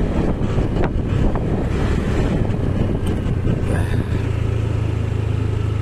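Vehicle engine rumble with wind buffeting the microphone while travelling; about four seconds in, the sound settles into a steady low engine hum.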